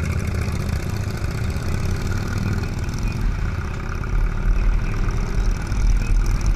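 Motorcycle engines running at a stop, then pulling away from the light, with wind rumbling on the microphone as the bike gathers speed from about three seconds in.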